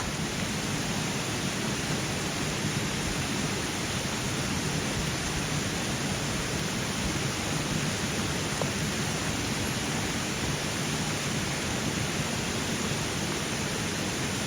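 Small mountain stream flowing: a steady, even rush of water.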